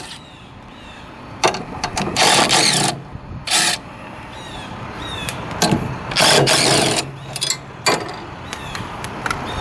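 Hand wrench loosening the bolts on a school bus stop-arm sign: short bursts of metallic clicking and rattling, a few seconds apart, over a steady low hum.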